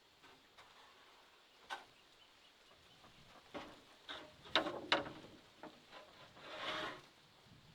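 A few sharp knocks, the two loudest close together about halfway through, then a short scraping rustle near the end.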